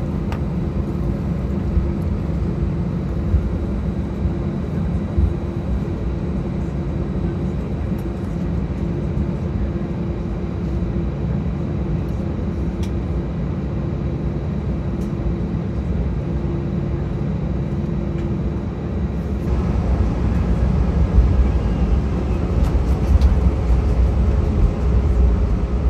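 Airbus A319 cabin noise while the jet taxis after landing: a steady low rumble of engines and rolling wheels with a constant hum, heard inside the cabin. About 19 seconds in the noise grows louder and rougher.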